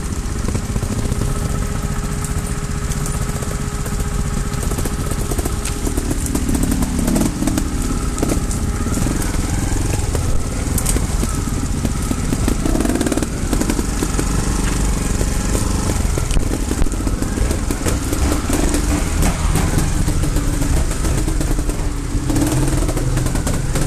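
Trials motorcycle engine running at low speed, its note rising and falling with short bursts of throttle as the bike is picked over rocks.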